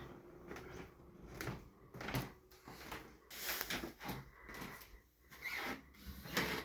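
Movement and handling noises: a string of short knocks, clicks and rustles, about one a second, with a brief squeak around the middle.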